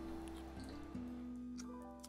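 Background music of slow, sustained notes that step to a new pitch every half second or so, with a few faint ticks.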